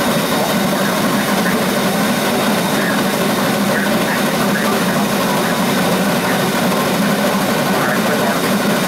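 Cass Scenic Railroad's Shay geared steam locomotive No. 6 running steadily under steam, a continuous dense mechanical and exhaust noise heard from up close at the front of the engine.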